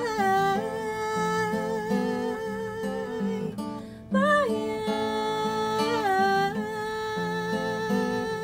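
Acoustic guitar strumming chords under a wordless vocal line held in long notes that slide between pitches: the closing bars of an acoustic song cover.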